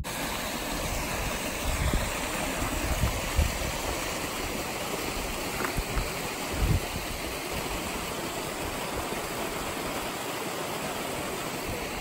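Steady rush of water from a stream running over rocks, with a few low thumps.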